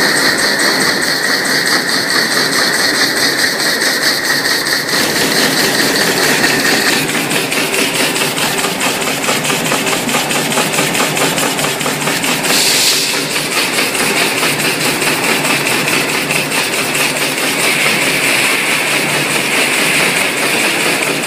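High-speed cake packaging line running at about 280 packs a minute: a loud, steady machine clatter with a rapid, even ticking rhythm. A high steady whine stops about five to seven seconds in, and a short hiss comes about thirteen seconds in.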